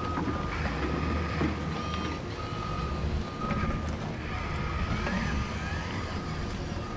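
Reversing beeps from a Huina 1583 RC wheel loader's sound module as it backs up, a single high tone sounding over and over over a steady low engine-sound hum.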